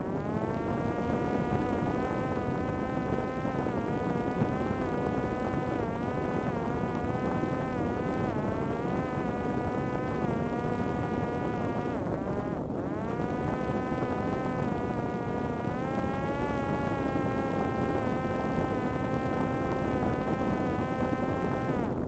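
Parrot Disco fixed-wing drone's electric motor and rear pusher propeller running as a steady, buzzing whine heard from on board, over wind rushing on the microphone. The whine rises in pitch as the motor spins up at the start, drops out briefly about halfway through, spins back up, and cuts off at the end.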